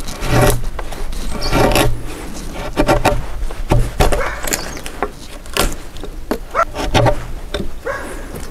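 Hanok chisel chopping a mortise in a timber beam: a string of sharp knocks and cracking wood, roughly one every second, as the chisel is driven into the grain and chips break away.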